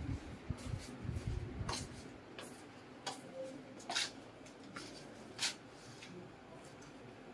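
Light footsteps, a short sharp step about every three quarters of a second, with low handling rumble on the phone's microphone in the first second or so.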